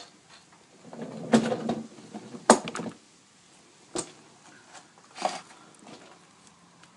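Handling noises from a removed rocker cover and a gloved hand working over it: a rustly patch of knocks and clicks in the first three seconds, the sharpest click about two and a half seconds in, then a couple of single knocks.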